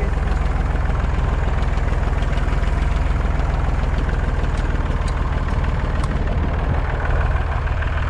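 Tractor engine running steadily as the tractor drives across rough grassland, a constant low rumble, with a couple of faint clicks about five and six seconds in.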